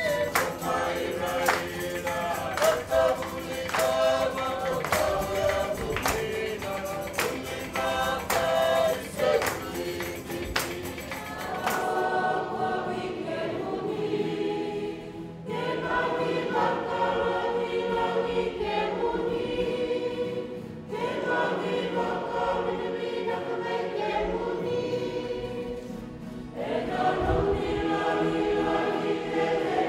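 Music with a regular percussive beat and singing, which changes about twelve seconds in to a choir singing in several parts. The choir sings in long held phrases with short pauses between them.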